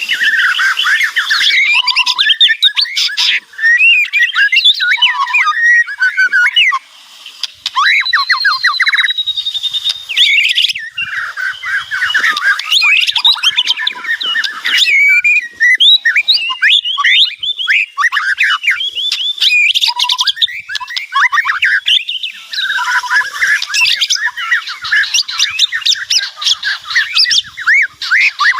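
White-rumped shama singing loudly and almost without pause: a fast, varied song of clear whistles, rapid trills and harsh chattering notes, with a couple of brief breaks and one longer held whistle about eight seconds in.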